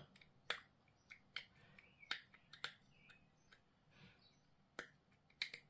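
A dozen or so faint, irregular clicks of small plastic model-kit parts being handled and fitted with tweezers.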